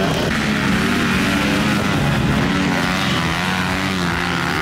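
Motocross bike engines revving hard through deep mud, their pitch rising and falling as the throttle opens and closes, with several bikes running at once.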